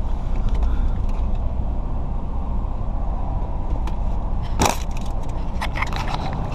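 Steady low rumble inside a car cabin with the engine running, and a few knocks and clicks of things being moved about by hand: one sharp knock about four and a half seconds in and a short cluster near six seconds.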